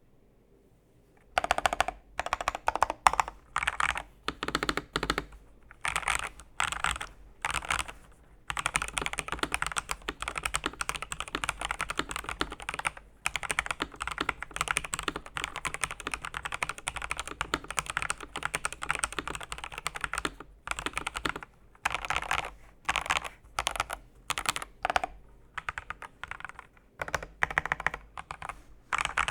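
Typing on an RK R98 mechanical keyboard. Short bursts of keystrokes begin about a second in, then long runs of fast continuous typing through the middle, then separate bursts again near the end.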